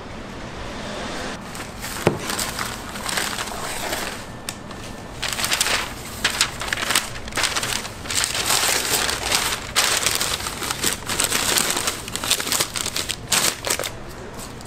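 Sheets of newspaper rustling and crinkling as they are spread out and smoothed flat by hand, in a long run of irregular rustles, with a single knock about two seconds in.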